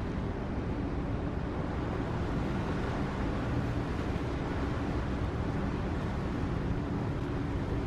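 Steady wind rumble on the microphone over a low, continuous machinery hum, with no sudden sounds.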